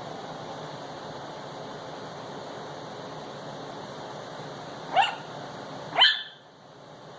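Chihuahua puppy giving two short, sharp, high yapping barks about a second apart near the end, over a steady background hiss.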